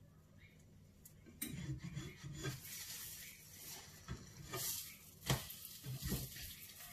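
A spatula scraping and sliding against a frying pan as a slice of egg-in-bread toast is lifted and flipped, with a few short knocks in the second half.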